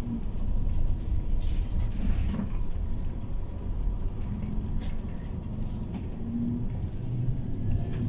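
Cabin noise inside a MAN Lion's City Ü city bus under way: a steady low engine and road rumble, with light clicks and rattles from the interior. A steadier low engine hum comes up near the end.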